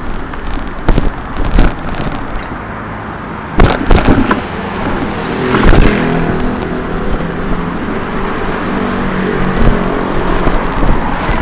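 Street traffic noise with a motor vehicle's engine running close by, broken by several sharp knocks and rattles, the loudest cluster about four seconds in.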